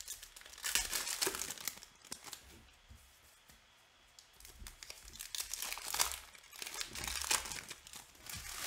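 Foil trading-card pack wrapper being torn open and crinkled by hand, in two spells of crackly rustling with a quieter lull between them.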